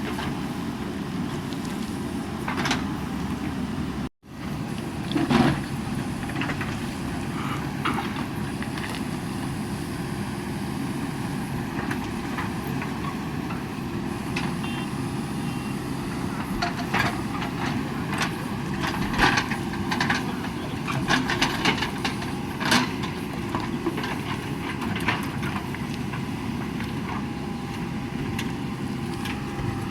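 JCB backhoe loader's diesel engine running steadily, with scattered short clanks and knocks from the machine at work. The sound drops out for an instant about four seconds in.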